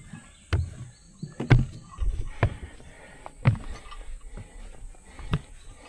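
Footsteps of trekking shoes climbing steep trail steps, about one heavy step a second.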